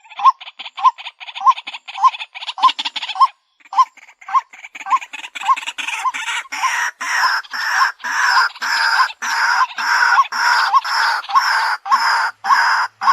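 White-breasted waterhen calling: a long run of repeated notes, roughly two a second, with a short break about three and a half seconds in. From about six seconds in the notes become longer and fuller.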